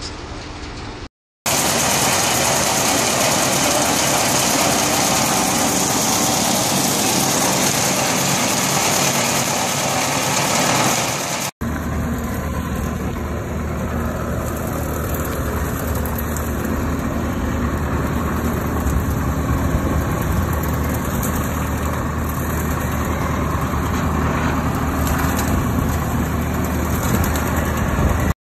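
Wood shavings machines running steadily. The first stretch is an even rushing noise. After a sudden break comes a steady mechanical hum with a low drone.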